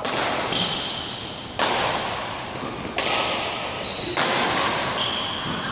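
Badminton rackets hitting a shuttlecock in a fast rally: four sharp hits about a second and a half apart, each ringing on in the echo of a large sports hall. Brief high squeaks of court shoes on the floor come between the hits.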